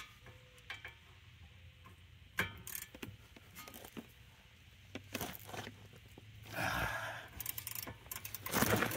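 Metal hand tools, a ratchet with socket and extension, clinking and tapping against a car's front brake caliper as they are fitted onto the caliper bolts, in scattered light clicks and knocks. A louder scraping rustle comes near the end.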